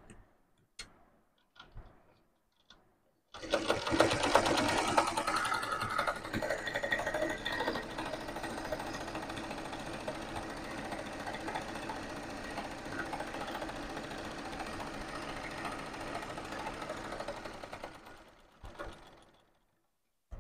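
Zig-zag sewing machine stitching a seam through fabric, running steadily for about fourteen seconds with a fast, even stitch rhythm, then slowing to a stop. A few light clicks from handling the machine come before it starts and after it stops.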